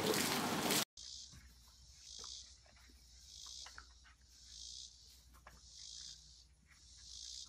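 Water splashing loudly in a plastic kiddie pool as a dog moves about in it, cutting off about a second in. Then an insect chorus buzzes high and thin, swelling and fading about once a second, with faint scattered ticks.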